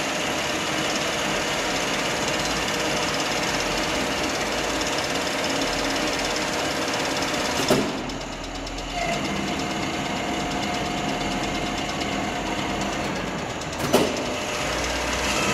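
Radial arm drill with a 7.5 hp motor running steadily, its spindle gearing humming with steady tones. About eight seconds in a clunk comes as the spindle speed is changed, the sound dips briefly, and the machine settles into a different running note; another clunk comes near the end.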